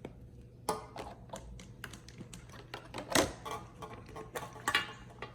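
Irregular clicks and taps of small plastic toy figure pieces being handled, the loudest about three seconds in.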